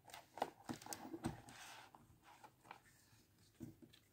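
Faint paper rustling and light clicks as a spiral-bound desk calendar is handled and a page is flipped over. The clicks cluster in the first couple of seconds, with a short rustle in the middle of them, then a few softer taps.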